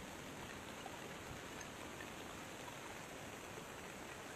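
Steady rushing hiss of heavy rain mixed with the Koshi River's floodwater running at high flood.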